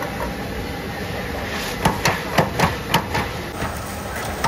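A quick run of about six sharp knocks over about a second and a half, a hard object striking something solid, over a steady background din.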